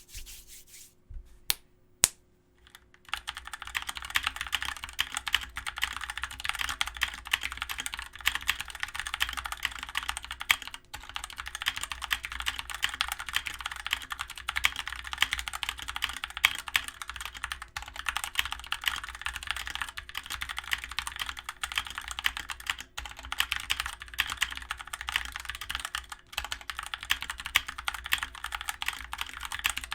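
Typing on a Dierya DK63 60% mechanical keyboard with Outemu switches: a few single keystrokes, then fast continuous typing from about three seconds in, broken by a few brief pauses.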